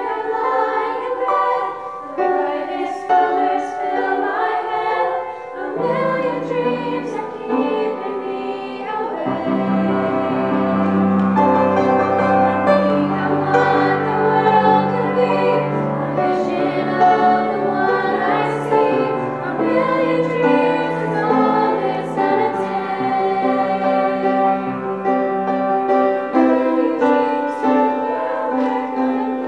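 A small group of female voices singing a song together, with piano accompaniment; deeper bass notes come in about six seconds in and again a few seconds later.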